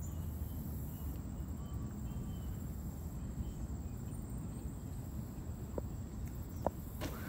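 Lakeside ambience: a low steady rumble of wind on the microphone with faint high chirps and two small clicks. Right at the end a large bird hits the water with a splash.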